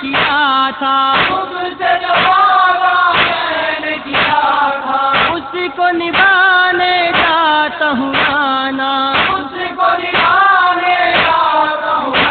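A noha, a Shia lament, chanted by a male voice in long, wavering held notes, over a steady beat that falls about once a second.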